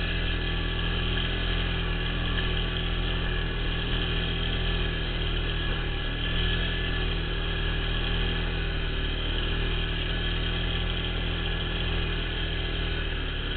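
Polaris ATV engine running steadily as the quad rides along: a constant drone that holds the same pitch throughout.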